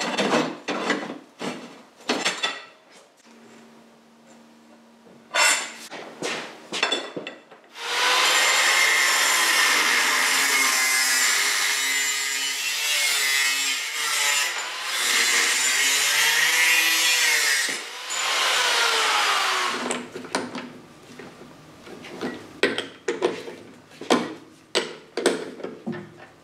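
Angle grinder cutting through a metal rod for about twelve seconds, its pitch dipping and recovering as the disc bites. Before and after the cut, scattered clicks and clanks of metal tools being handled, with a lathe chuck being worked with its key near the end.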